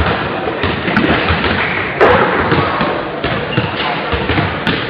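A basketball bouncing on a sports-hall floor, thudding repeatedly and echoing around the hall, with a sharper, louder bang about two seconds in. Distant voices of players and spectators underneath.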